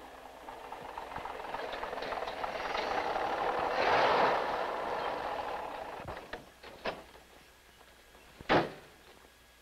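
A motor vehicle passing, its noise swelling for about four seconds and then fading away. A few short clicks follow, then a single sharp knock near the end.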